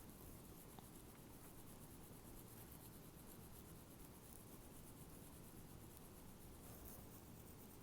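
Near silence: faint room tone, with one tiny click about a second in.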